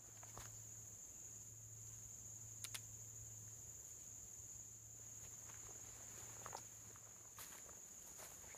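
Faint, steady high-pitched insect chorus, with a few soft clicks and ticks from small handling noises.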